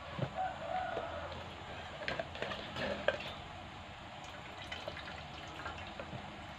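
Wet squelching and trickling as hands squeeze grated coconut over a plastic strainer, with coconut milk dripping and splashing into an aluminium pot below. A short pitched call sounds about half a second in.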